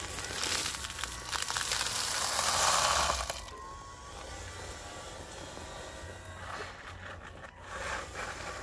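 Loose gravel pouring out of an RC model wheel loader's tipped bucket onto a gravel bed, a rattling hiss of small stones loudest in the first three seconds. After that it is quieter, with a few clicks near the end as the model moves off.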